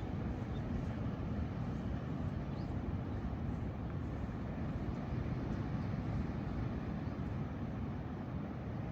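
Steady, even low rumble of outdoor beach ambience, with no rise and fall.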